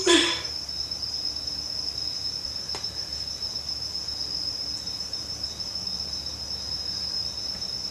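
Steady, unbroken high-pitched insect trill of crickets, with one faint click a little under three seconds in.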